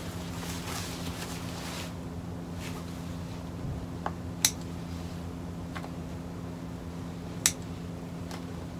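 Neoprene wetsuit fabric rustling as it is handled, then several sharp snips of small hand scissors, the two loudest about four and a half and seven and a half seconds in.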